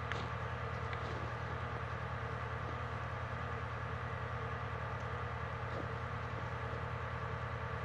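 An engine idling steadily: an even, low, pulsing hum that does not change.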